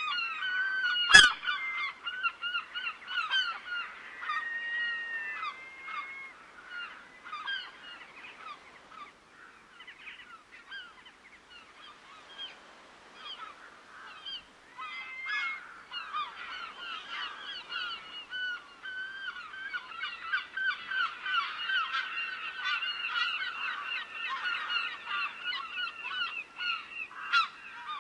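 A flock of waterbirds calling in a dense, continuous chorus of short honking calls, thinning for a few seconds mid-way and then building again. A single sharp click sounds about a second in.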